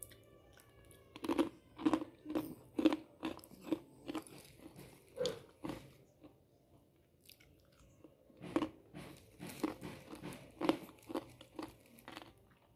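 A person eating a crunchy snack close to the microphone: a run of crunching bites, a pause of about two seconds, then more crunching.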